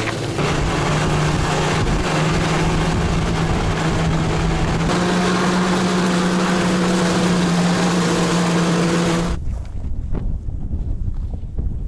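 Snowmobile engine running steadily at speed, heard from aboard with wind on the microphone; its pitch steps up slightly about halfway through. About nine seconds in the engine cuts off suddenly, leaving wind buffeting the microphone and a few light ticks.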